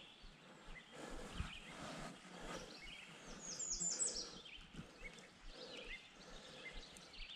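Quiet woodland ambience with birds singing: scattered short chirps, and a quick run of high, falling chirps about halfway through. Faint knocks and rustles from hands handling the fly rod and line.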